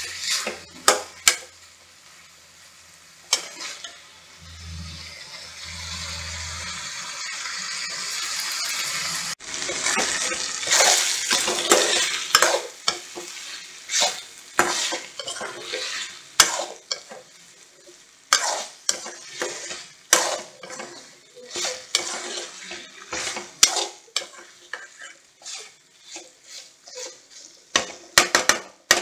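Boneless chicken pieces sizzling in oil in a steel kadai while a metal spoon stirs them, scraping and clinking against the pan many times. The sizzle swells and is loudest around the middle, as the chicken is dry-fried in oil without any water.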